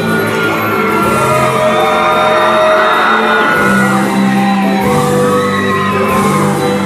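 Bolivian salay dance music playing loudly over a hall's loudspeakers: a sung melody with gliding held notes over a steady bass line.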